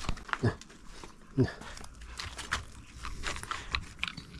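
A pet chewing and crunching food, with many short crisp clicks and two louder short sounds in the first second and a half.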